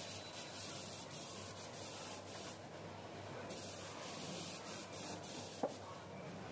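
Filler knife scraping body filler across a car's wheel-arch panel in short rubbing strokes, laying down a thin first coat. The strokes pause briefly about two and a half seconds in, and a single sharp click sounds near the end.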